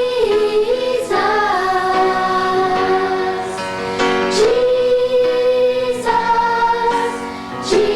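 A choir singing a slow song, the word "Jesus" drawn out in long held notes of several seconds each over musical accompaniment.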